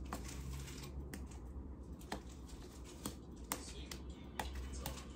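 Piggy Paint nail polish bottle being shaken and handled, giving scattered light clicks and taps at uneven spacing.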